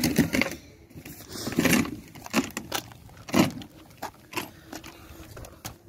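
Irregular knocks, clicks and scrapes of a new shock absorber and its metal transport clamp being handled, with short metallic clinks several times.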